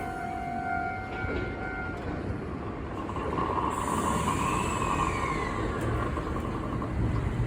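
Electric train running, with a steady whine from its motors and a second whine that rises and then falls in pitch about midway.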